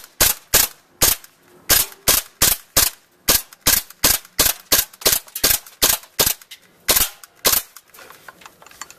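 Gas blowback airsoft pistol fired in quick semi-automatic, about two to three sharp shots a second with the slide cycling each time. There is one short break in the string, and near the end the shooting stops and only faint clicks remain.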